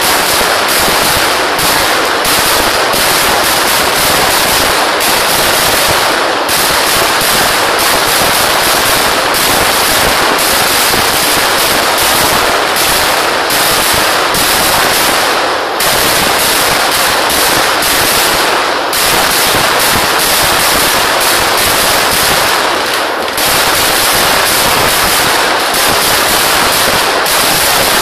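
Kerala temple-festival fireworks: a dense, unbroken barrage of firecracker explosions so rapid that they merge into continuous crackling, with brief lulls about 6, 16, 19 and 23 seconds in.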